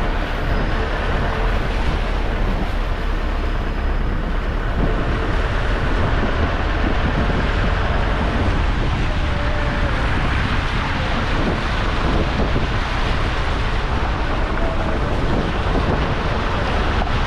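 Steady wind rush on the microphone from the open window of a moving vehicle, over the vehicle running along a wet, muddy road.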